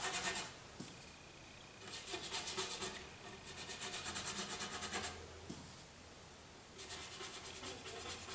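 An oil-painting brush scrubs paint onto the canvas in quick, short, scratchy strokes. It comes in four spells of rapid rubbing, with short pauses between them.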